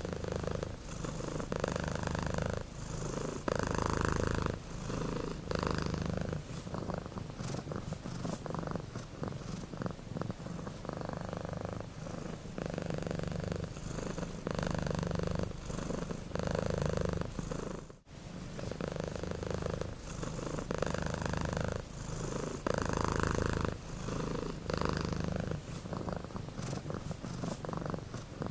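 Domestic cat purring steadily, rising and falling with each breath in and out, with a short break about 18 seconds in.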